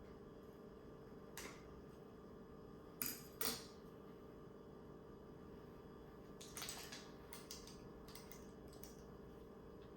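A few light clicks and knocks of small kitchen items being handled: one about a second and a half in, two louder ones near three seconds, then a scatter of small ticks later on, over a faint steady hum.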